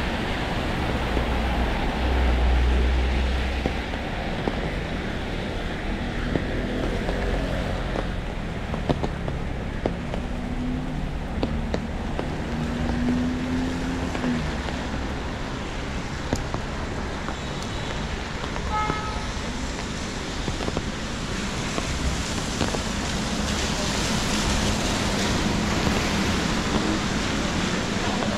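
City street traffic on wet roads in the rain: a steady hiss of tyres and rain, with a louder low rumble of a passing vehicle about two seconds in.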